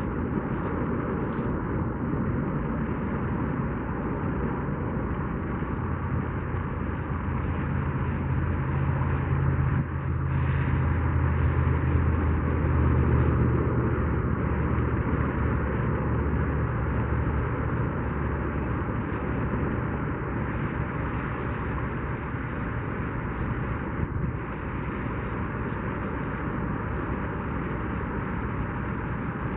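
Steady outdoor noise with a low rumble and faint hum, swelling louder for several seconds around the middle.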